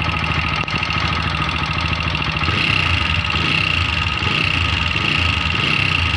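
TVS Apache 160 4V BS6 single-cylinder engine idling with a steady, rapid ticking from the cylinder head. The mechanic traces the noise to very loose tappets (excessive valve clearance), worst on the intake side.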